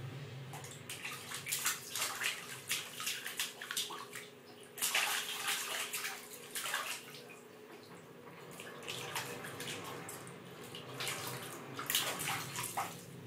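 Water splashing in a plastic baby bathtub as a baby slaps and paddles it with both hands, in irregular bursts, heaviest about five seconds in and again near the end.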